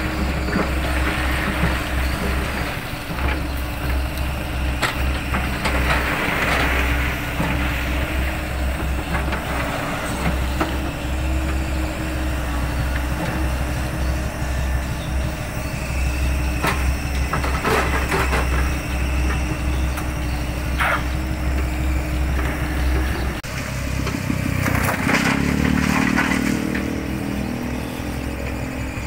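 Mini excavators' diesel engines running steadily as they work gravel and sand piles, with gravel rattling and scraping in bursts as the bucket digs and dumps, and occasional sharp metal knocks. The engine note changes about 23 seconds in.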